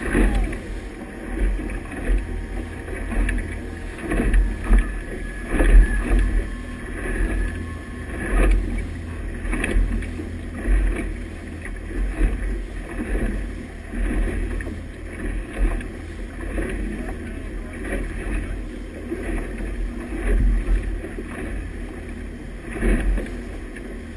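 Boat under way with its wake rushing and churning astern, and gusts of wind buffeting the microphone in uneven pulses.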